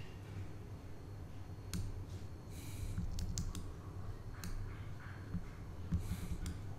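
A handful of irregular clicks from a computer mouse and keyboard during brush work in image editing, over a steady low hum.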